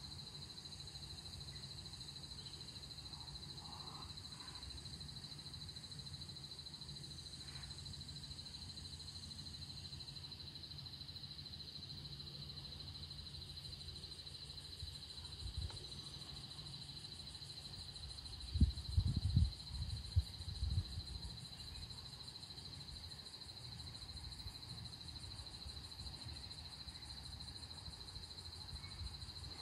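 Steady high-pitched drone of insects, with a low rumble that swells in a few short surges about two-thirds of the way through.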